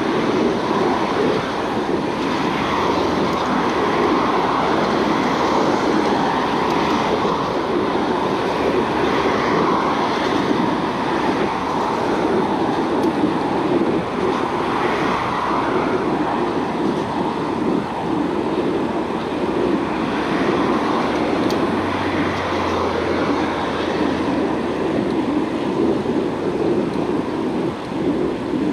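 Steady rushing noise of riding a bicycle: air rushing over the camera microphone and tyres rolling on the paved bike lane, with road traffic alongside.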